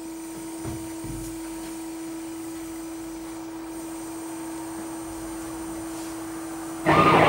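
Steady electrical hum of one even tone from the amplified electronic drum setup, with a couple of faint handling bumps in the first second or so. Near the end, a much louder recording starts suddenly through the speaker.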